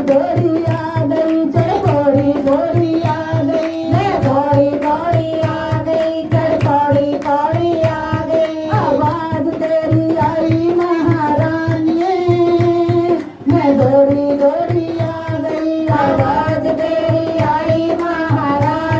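Devotional bhajan music: singing over a steady hand-drum beat, with a short break in the sound about 13 seconds in.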